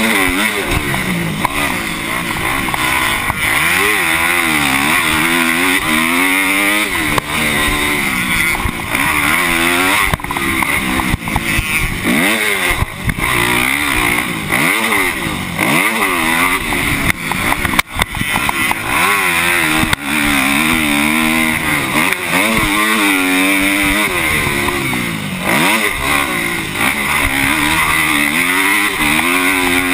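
Dirt bike engine revving up and falling back again and again as the rider opens and closes the throttle and shifts through the gears on a motocross track. A few sharp knocks cut in along the way.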